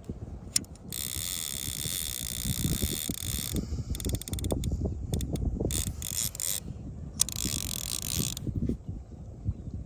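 Fishing reel ratcheting in two spells, one of about two and a half seconds and one of just over a second, with scattered clicks between them. Wind rumbles on the microphone underneath.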